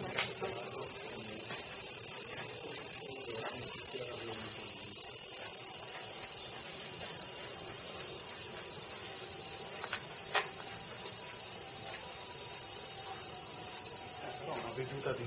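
Chorus of cicadas in the trees: a steady, high-pitched drone that does not let up, with a faint click or two about ten seconds in.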